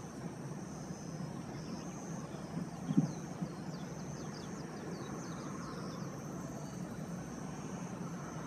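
Outdoor ambience: a steady low rumble with a faint high hiss, a short low thump about three seconds in, and a run of faint high, falling chirps a little later.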